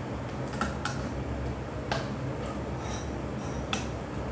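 A hand can opener being worked into the top of a metal can of evaporated milk, with a few sharp clicks and faint metal squeaks and scrapes as the blade bites into the tin. A steady low hum runs underneath.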